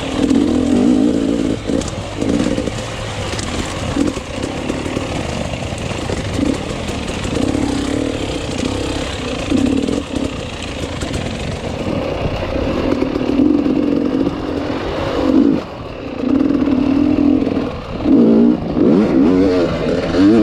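Enduro motorcycle engine being ridden hard off-road, the revs rising and falling again and again as the throttle opens and shuts every second or two.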